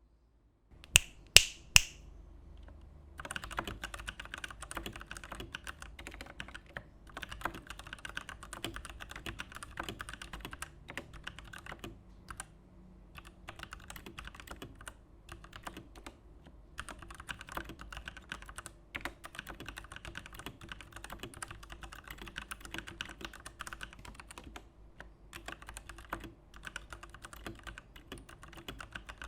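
Typing on a Digital Alliance Meca Warrior X mechanical keyboard with PBT doubleshot keycaps: fast, continuous keystroke clatter broken by short pauses. It opens with three sharp, louder clicks about a second in.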